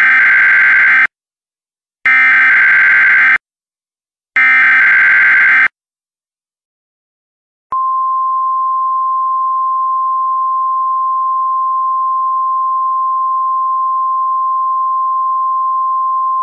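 Emergency Alert System header: three buzzy digital data bursts, each about a second long and about two seconds apart, the coded start of the alert message. After a pause of about two seconds, a steady single-pitch attention tone starts about eight seconds in and holds.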